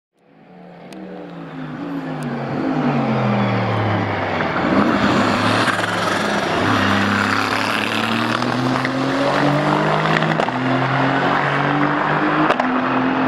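Aston Martin Vantage GT3 AMR race car's Mercedes-AMG 4.0-litre twin-turbo V8 fading in, its engine pitch falling in steps as the car slows for a corner, then rising as it accelerates away.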